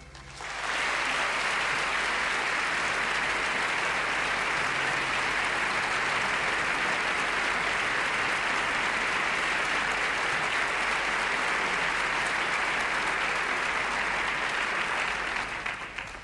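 Large audience applauding steadily, swelling in within the first second as the orchestra stops and dying away near the end.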